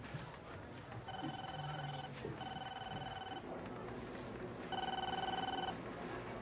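Electronic desk telephone ringing three times, each warbling ring about a second long.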